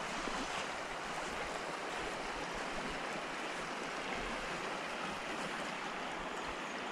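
A shallow gravel-bed river flowing over its shingle riffles: a steady, even rush of water.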